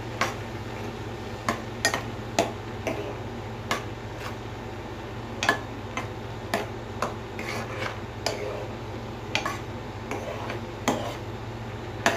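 A steel ladle stirring a simmering pan of luffa and moong dal, clinking and scraping against the pan at irregular moments about once a second, over a steady low hum.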